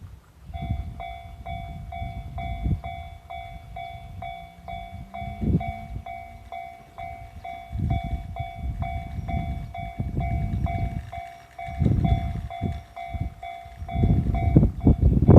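JR-standard electronic level-crossing warning bell starting about half a second in and dinging steadily at about two strikes a second, the signal that a train is approaching and the crossing is closing. An uneven low rumble runs underneath and is loudest near the end.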